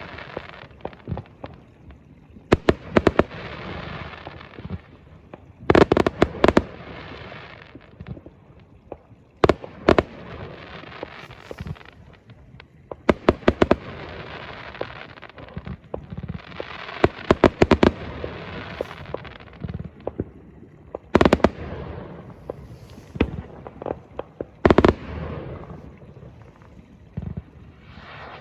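Fireworks going off: clusters of sharp bangs in quick volleys every few seconds, each followed by a crackling, hissing fizz from the bursting shells.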